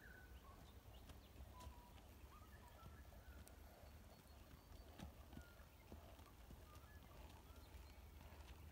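Faint hoofbeats of a horse walking on a dirt track, as scattered soft clicks, under a steady low rumble, with a few short bird chirps.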